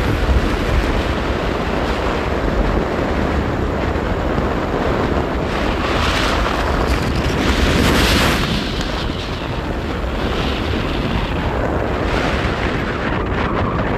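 Wind buffeting the microphone on a moving motorcycle, a loud steady rush with heavy low rumble, swelling in stronger gusts about six and eight seconds in.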